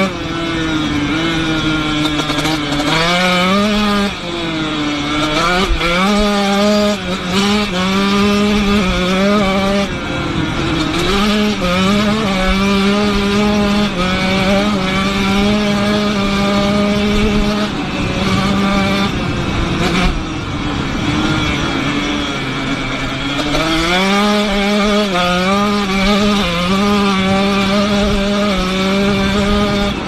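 Dirt bike engine running under way. Its note climbs and drops several times, holds steady through the middle, dips about two-thirds of the way through and climbs again, over a steady rush of noise.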